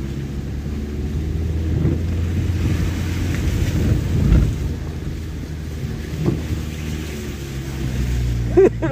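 Car engine running steadily as the car drives slowly over a muddy, rutted dirt road, heard from inside the cabin, with a loud thump from the car bouncing through a rut about halfway through.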